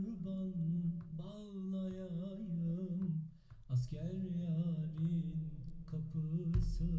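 A solo male voice sings a Turkish folk song (türkü) with long, wavering held notes, played back from a recording through compression and reverb, with a short break between two phrases midway.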